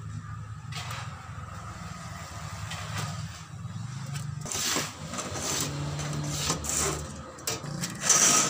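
A pointed metal scriber scratching marking lines into a galvanized steel sheet along a steel ruler, in short rasping strokes that grow more frequent in the second half, the loudest just before the end. A steady low hum runs underneath.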